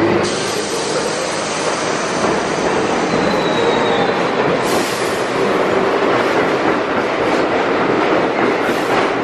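An R62 subway train pulling out of the station and gathering speed, its running noise steady and loud. A thin, faint wheel squeal comes a few seconds in, and short clicks of wheels over the rails grow more frequent in the second half.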